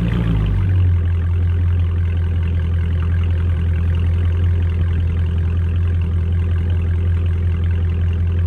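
Dodge Charger Scat Pack's 392 Hemi V8 running with a steady low drone. Its pitch steps up slightly within the first second, then holds.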